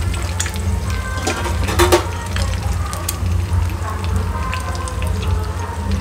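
Eggs sizzling in a frying pan on a gas stove while a metal spoon scrapes and taps against the pan to scramble them. There is a sharp clack about two seconds in.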